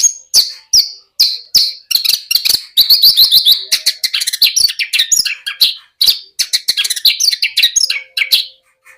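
Horsfield's bush lark (branjangan) singing a fast, varied song of short chirps, trills and quick rising and falling notes. The song breaks off briefly about a second in and again about six seconds in, and stops just before the end.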